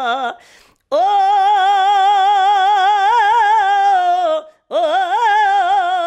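A man singing a Punjabi song unaccompanied, holding long drawn-out notes with a wavering vibrato. One note ends just after the start; a new long note begins about a second in, and another after a short breath a little before five seconds.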